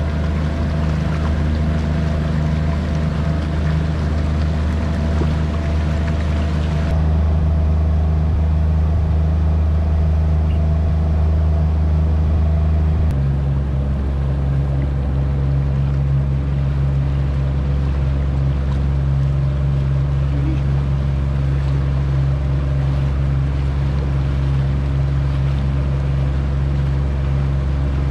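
Boat engine running steadily at cruising speed, heard from aboard as a low, even drone over the rush of water, with the drone's pitch changing slightly about halfway through.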